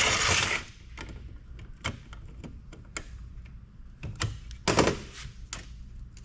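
Hand-tool work on the metal parts of a microfiche reader being taken apart: a short scraping rush at the start, scattered light clicks and knocks, and a louder clatter a little before five seconds in.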